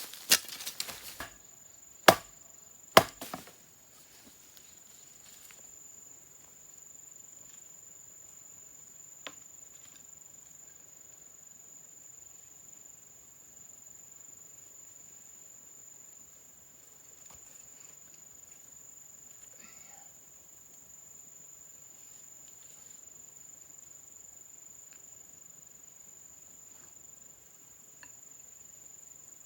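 A few sharp knocks in the first three seconds, then a steady, high-pitched chirring of insects with only a faint tick here and there.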